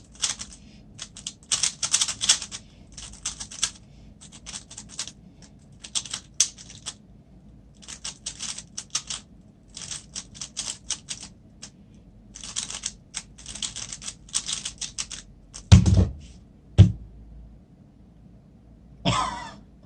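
Rubik's Cube being turned fast by hand: rapid clicking of plastic layers in bursts with short pauses between them. Two heavy thumps come about sixteen and seventeen seconds in, and the clicking stops.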